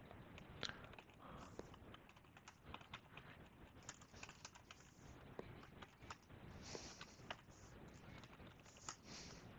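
Faint typing on a computer keyboard: irregular, quick key clicks.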